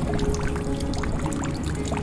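Water dripping and pouring into a jug, with many irregular sharp drip ticks, over soft background music with steady held notes.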